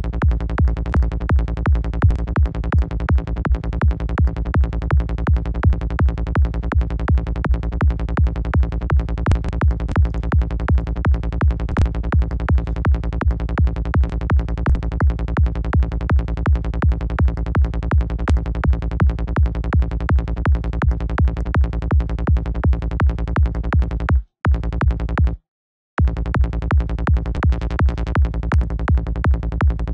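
High-tech psytrance kick and bass line from the KickNBassGel software synth in the key of A#, a fast, steady, punchy kick pattern at about 165 BPM with a rolling bass between the kicks. The loop cuts out twice, briefly, near the end.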